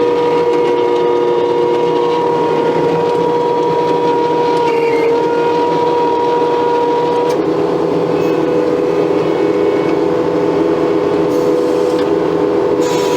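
Case skid steer running a stump grinder attachment: the engine and hydraulic drive run steadily under load with a constant whine.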